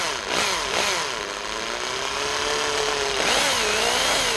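Electric drill with a 4 mm bit boring into the soft metal of a die-cast Hot Wheels car. The motor runs steadily, its whine wavering up and down in pitch as the bit bites, with a higher wavering whine near the end.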